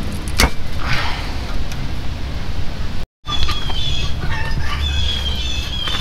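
Handling noise as the old oil pan gasket is pulled off the engine block, with one sharp click about half a second in. After a brief break in the audio about halfway, a low steady hum runs with repeated high chirps over it.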